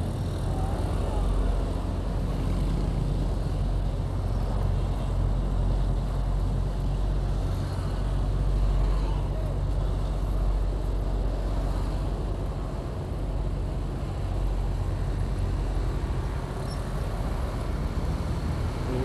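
Motorcycle engine running steadily while riding, with road and traffic noise around it.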